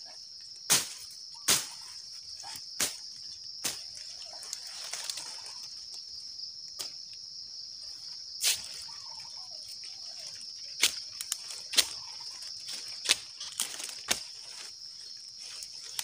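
Machete strikes splitting and trimming oil palm frond stalks: about ten sharp, irregular cracks, the loudest sounds here. Under them runs a steady, high-pitched insect drone.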